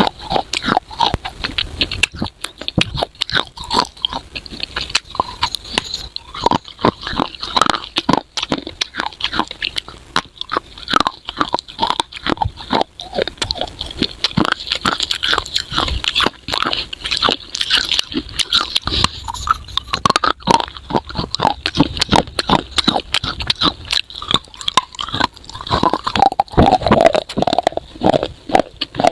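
Close-miked biting and chewing of crunchy clay pot pieces: many crisp crunches and cracks in quick, irregular succession.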